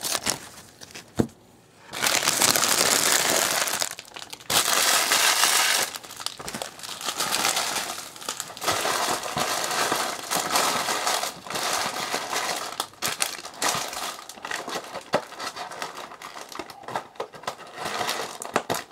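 Foil trading-card pack wrapper crinkling and being crumpled by hand, in two long dense stretches near the start, then more uneven crinkling almost to the end.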